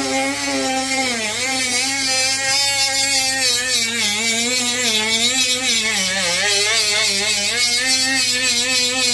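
Dremel rotary tool with a sanding drum grinding the polymer trigger guard of a Glock 26 frame to cut an undercut. The motor's whine wavers in pitch as it is pressed into the plastic, dipping briefly about six seconds in.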